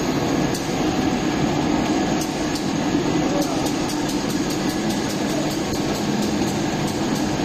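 Stenter (tenter frame textile finishing machine) running steadily: a continuous hum and rush from its drives and hot-air circulation fans, with a light regular ticking of about two to three a second from about two seconds in.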